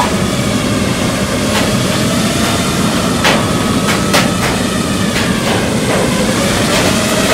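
Five-inch FPV quadcopter's brushless motors and propellers (T-Motor Velox 2207 2550KV) whining in flight under the weight of a mirrorless camera, the pitch wavering with throttle. A few sharp clicks sound over it.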